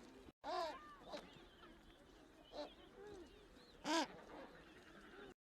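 Several short animal calls a second or more apart, each arching up and falling back, the loudest about four seconds in; the sound breaks off briefly just after the start and cuts out abruptly near the end.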